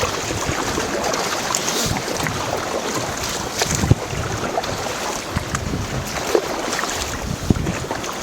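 River water rushing steadily around a paddled whitewater raft, with a few sharp knocks and splashes from the paddles.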